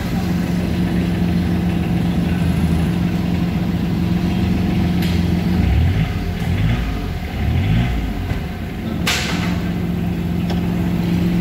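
Daihatsu Charade three-cylinder diesel engine idling steadily, its pitch rising and falling twice in the middle as the throttle is briefly blipped. There is a sharp click near the end.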